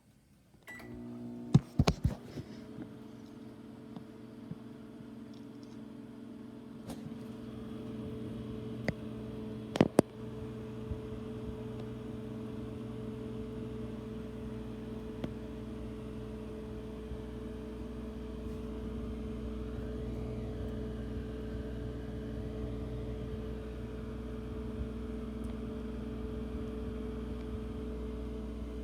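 Microwave oven started with a keypad beep and a few clicks, then running with a steady hum. Sharp clicks or knocks come around seven and ten seconds in.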